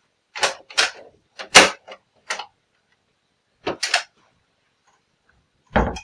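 A wooden interior door and its latch being worked, a run of sharp clicks and knocks. The loudest comes about one and a half seconds in, a few more follow about four seconds in, and a heavier pair lands at the end.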